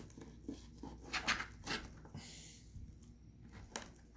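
A blunt kitchen knife sawing through raw snapper fillet on a tile cutting board: a few short scrapes of the blade, then a sharp click of the knife on the tile near the end.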